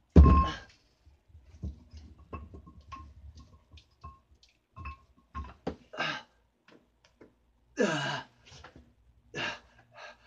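Dumbbell workout sounds: a loud thump just after the start, then scattered small clicks and knocks of the weights being handled, and several short grunts and breaths of effort.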